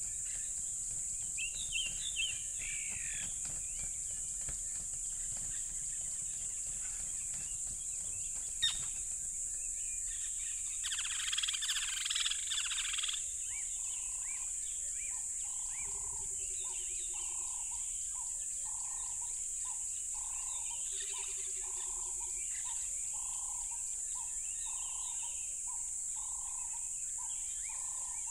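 Crickets trilling in a steady, high, unbroken chorus, with bird chirps in the first few seconds. There is a sharp click near 9 s, a louder burst of calling around 11 to 13 s, and from about 14 s on a lower call repeating about once a second.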